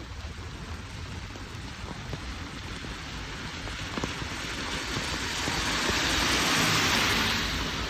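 Steady rain, with a swelling hiss of tyres on the wet road. The hiss rises about five seconds in and eases off near the end, like a vehicle passing. A single sharp click comes about halfway through.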